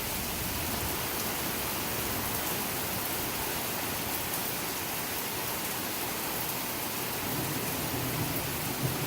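Heavy rain pouring down steadily during a thunderstorm.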